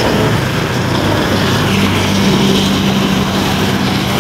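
Motorcycle engine running steadily, a low drone with a steady hiss underneath.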